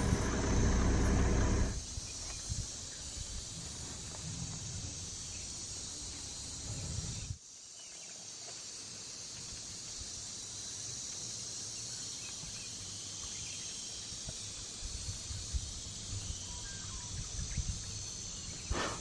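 Outdoor ambience: a steady, even background hiss. A louder low rumble in the first couple of seconds stops abruptly, and there is a sharp break about seven seconds in.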